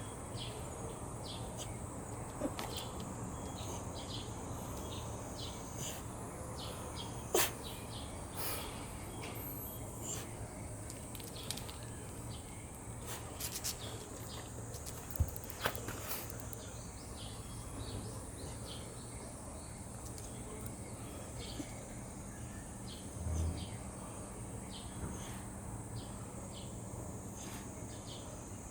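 Quiet morning background with a steady high hiss and faint, scattered bird chirps. A few sharp clicks stand out, the loudest about seven seconds in and a pair about fifteen seconds in.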